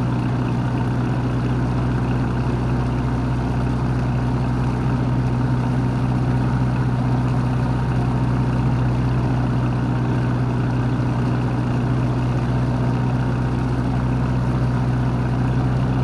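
A boat's engine running steadily, a constant low drone with no change in speed.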